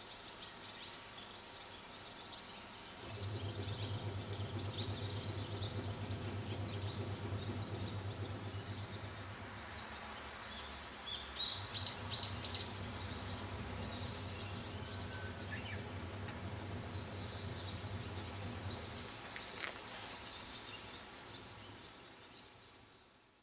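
Small birds chirping over a steady low machine hum. The hum starts about three seconds in and dies away near the end; a burst of louder chirps comes about halfway through.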